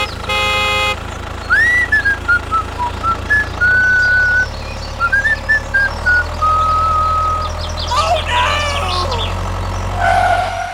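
A tune whistled in clear held and sliding notes over a steady low hum, opening with a short buzzy horn-like tone that lasts about a second.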